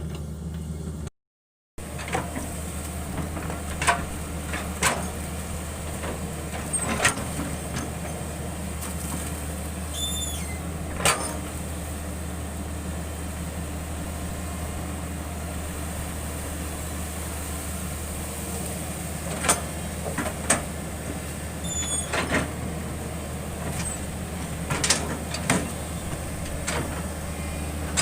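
Hitachi 110 excavator's diesel engine running at a steady pace while it works, with scattered sharp knocks about ten times. The sound cuts out completely for about half a second, about a second in.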